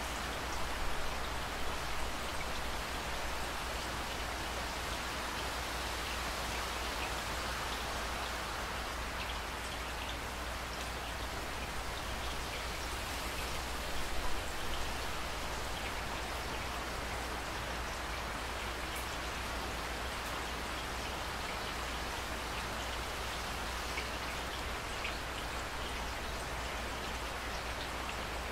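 Steady rain falling: an even hiss of rain with many small drop ticks, slightly louder for a moment about a second in and again about fourteen seconds in.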